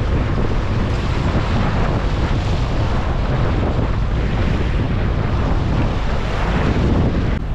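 A boat running at speed: steady wind buffeting the microphone over the rush of the wake, with the Yamaha 200 outboard running underneath.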